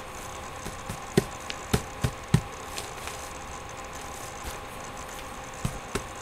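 A few short knocks and taps: four in quick succession a little after a second in, then two more near the end, over a steady low electrical hum.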